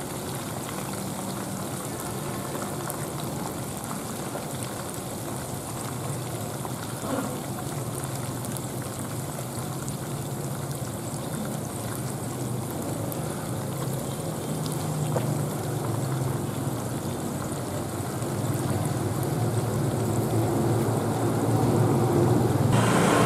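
Whole parrotfish deep-frying in a wok of hot oil: steady sizzling and bubbling with a dense crackle of tiny pops.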